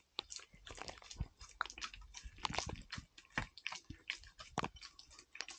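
Chewing and biting of crunchy food: an irregular run of sharp, crisp crunches.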